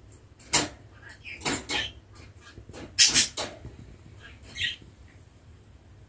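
A budgerigar in its cage making about five short, sharp sounds, the loudest a cluster about three seconds in.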